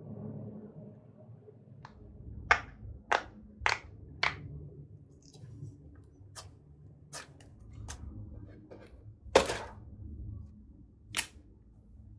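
Green glitter slime being poked and pressed with fingers, giving a string of about ten sharp, separate pops and clicks, the loudest and longest about three-quarters of the way through.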